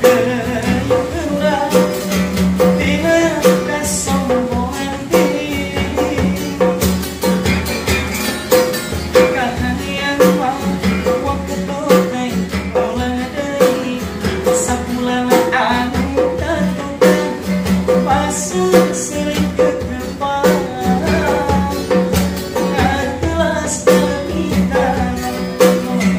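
A man singing to his own strummed acoustic guitar, with a djembe hand drum beating a steady rhythm under the song.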